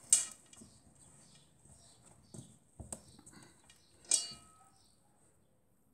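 Hands kneading and pressing crumbly shortbread dough in an enamel bowl: faint, scattered knocks and thumps against the bowl, with one brief ringing clink about four seconds in.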